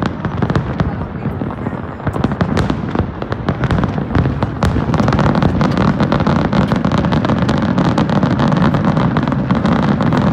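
Fireworks display: rapid, overlapping bangs and crackles of many shells going off at once. From about halfway a steady low rumble builds up under the crackling.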